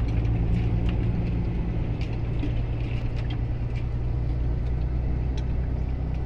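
Truck engine running steadily, heard from inside the cab as it drives: a low, even hum with a few light clicks from the cab.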